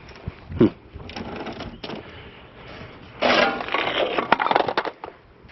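Items being handled and moved about: a loud rustling, clattering stretch of about a second and a half, starting about three seconds in.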